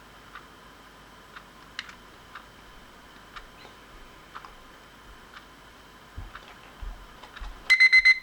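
Cheap battery-powered quartz analog alarm clock ticking about once a second, then its alarm goes off near the end: a loud burst of rapid, high-pitched electronic beeps.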